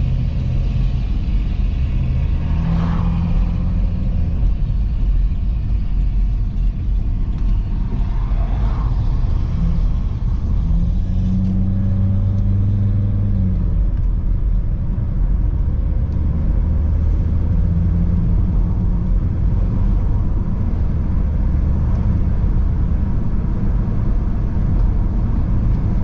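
Car driving, a heavy steady low rumble of engine and road noise, with the engine note rising and falling a few times.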